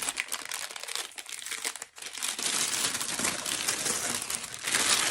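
Packaging crinkling and rustling as the stick vacuum's long wand is pulled out of its box, louder in the second half.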